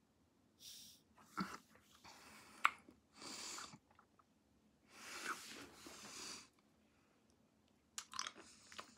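Faint, heavy breaths through the nose and mouth, three or four noisy breaths with the longest about five seconds in, plus a sharp mouth click about two and a half seconds in and small mouth clicks near the end. The breathing comes from a person reacting to the sourness of a Toxic Waste sour candy.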